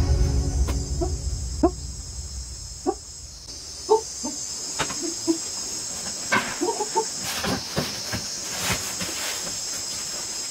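Steady high-pitched insect chorus, with short low chirps scattered through it and a few knocks and scrapes about two-thirds of the way in.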